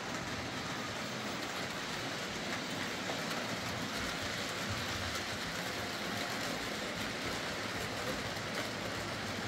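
OO gauge model freight train rolling steadily past on the layout's track: a steady rumble of many small wagon wheels on the rails, hauled by a Hornby Class 56 model diesel running under power after its motor repair.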